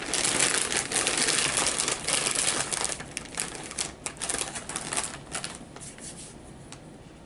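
Plastic chip bag of puff corn crinkling loudly as it is handled and folded shut, the crackling dense for the first few seconds and then thinning to scattered crackles.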